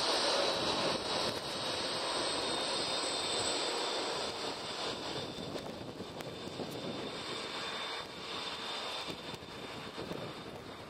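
Airbus A310-304's two GE CF6-80C2A2 turbofan engines at taxi power: a steady rush with a thin high whine, fading slowly as the airliner moves away.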